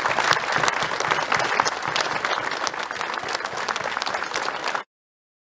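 A small group of people applauding, a dense patter of hand claps that cuts off abruptly near the end.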